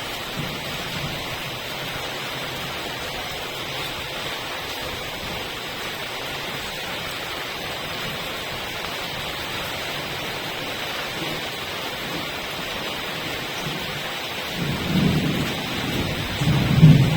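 Steady rain hiss. Near the end, two low rumbling swells rise over it.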